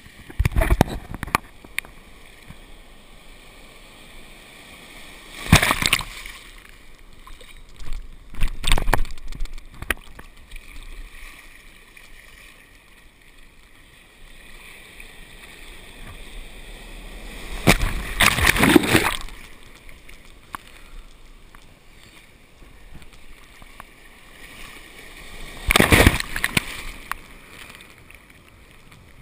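Sea water sloshing around a camera held at the surface among ocean waves, with about five loud splashes as waves wash over it; the longest comes near the middle.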